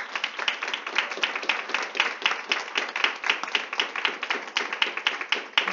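Audience applauding, many hands clapping in a dense, uneven patter, heard over a Skype video call, which makes it sound thin.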